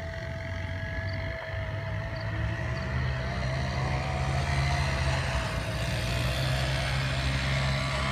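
An HBU-20 diesel locomotive approaching, its engine rumble growing steadily louder. A thin, wavering high tone runs over the rumble.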